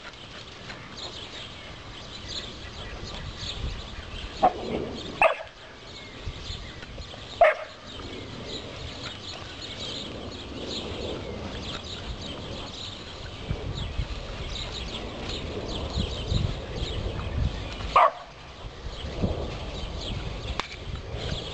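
A dog barking a handful of times: two short barks close together about five seconds in, another about two seconds later, and a last one near the end.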